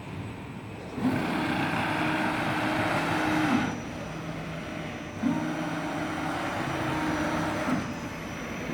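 Fiber laser cutting machine doing a fast dry run without cutting: the gantry and cutting head traverse on their rack-and-pinion drive, making a steady motor whine with a hiss. There are two moves, each about two and a half seconds long, the first about a second in and the second past the middle, with a brief rise in pitch at each start and a drop at each stop.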